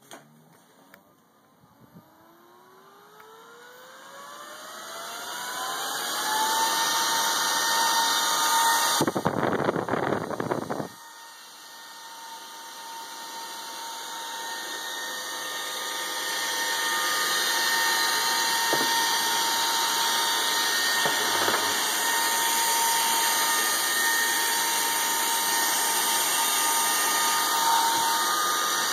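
High-speed Delta server cooling fan spinning up, its whine rising in pitch over a few seconds, then running loud at full speed with a steady high whine over the rush of air. About nine seconds in there is a two-second blast of louder rushing noise, after which the sound dips and then builds back to the same steady level.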